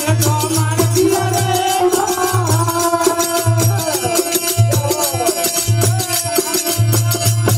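Rajasthani desi bhajan: a male voice singing a wavering devotional melody through a microphone and PA, over steady hand percussion and a low beat about once a second.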